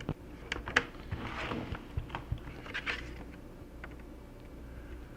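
Plastic snap clips of a laptop's case clicking as the case is pried apart, several small sharp clicks mixed with brief scraping of plastic on plastic.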